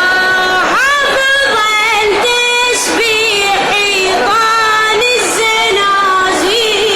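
A male reciter chanting a Husseini elegy solo in a high voice, holding long notes with quick ornamental turns of pitch between them.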